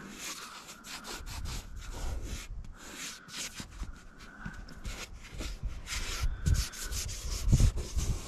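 A bare hand rubbing and wiping over dusty, gritty car window glass in many quick scratchy strokes, with a few low thumps near the end.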